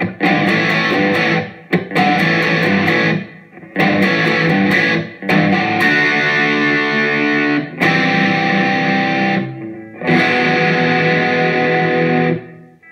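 Distorted electric guitar from a 1984 Made in Japan Fender Stratocaster fitted with DiMarzio Area pickups, played through a Pod HD500X Marshall amp model into a Roland amp. It plays six short bursts of rock chords, each stopped abruptly, with the last left ringing out near the end. The brief gaps between phrases are silent, with no 60-cycle hum or buzz: the new pickups are very clean.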